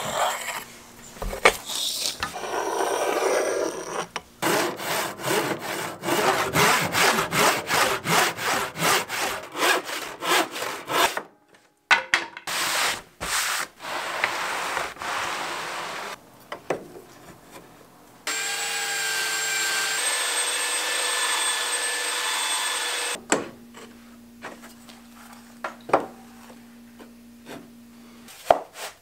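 Sawing 3/4-inch plywood: a long run of rhythmic back-and-forth saw strokes, about three a second, then a saw motor running steadily for several seconds.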